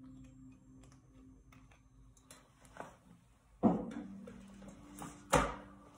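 Handling sounds over quiet room tone: a few faint clicks, then two sharp knocks about a second and a half apart.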